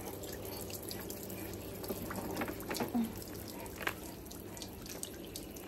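Water trickling and dripping, with a few small splashes or drips standing out near the middle.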